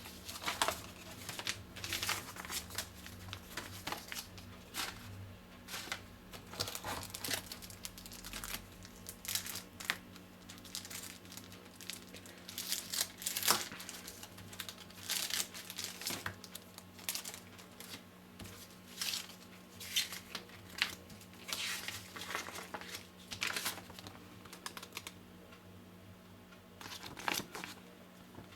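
Packaging being handled during a phone unboxing: irregular crinkling and rustling in short bursts with brief pauses between them.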